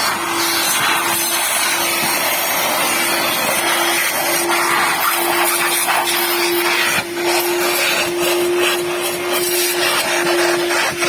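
A machine running loudly and steadily: a rushing noise with a constant hum under it, and a few brief knocks.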